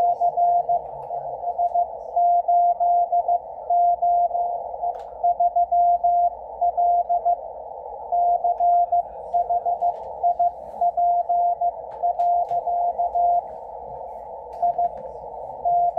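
Morse code from W1AW's ARRL code-practice transmission on 80 meters, heard through a Yaesu FTdx10 transceiver's speaker: a single steady tone keyed in dots and dashes over band hiss narrowed by a 500 Hz filter. The keying pauses for about a second and a half near the end.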